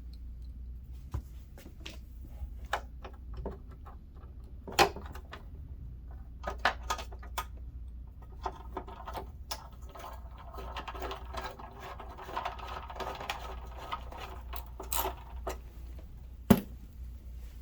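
Irregular clicks and knocks of plastic scooter body panels and parts being handled and fitted back in place, with a sharp knock about five seconds in, a denser stretch of rattling in the second half, and the loudest knock near the end.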